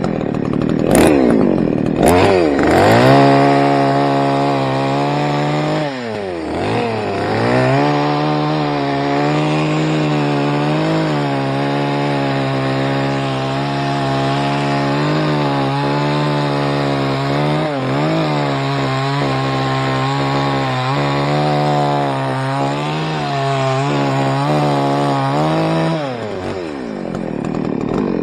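Small chainsaw revved up and down a few times, then held at high speed while cutting into a palm trunk, with one brief dip in revs a few seconds later. Near the end the revs fall away as the saw comes off the cut.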